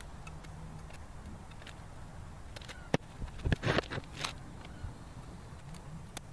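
Small metal engine parts clicking against each other and a plastic zip bag crinkling as they are handled, with the loudest rustle and clatter about three and a half seconds in.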